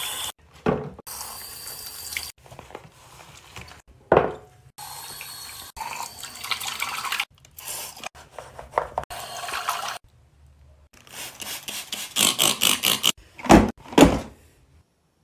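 Bathroom sink cleaning sounds in quick cuts: a tap running into a sink basin, then rubbing and scrubbing at the sink drain. Near the end comes a quick run of rubbing strokes, about five a second, and then two loud thumps.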